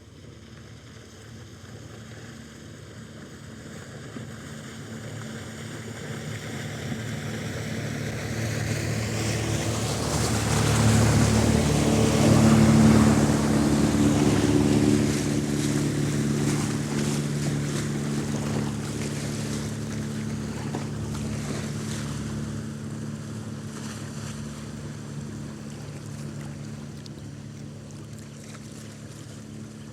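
A motorboat passing by: the engine's low hum and the rushing wash of water grow steadily louder, peak about twelve seconds in, then slowly fade as it moves away.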